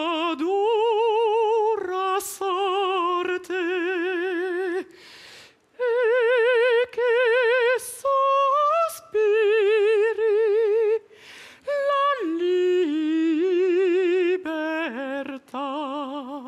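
A man singing unaccompanied in a high voice, holding a string of long notes with a wide vibrato, broken by short pauses for breath.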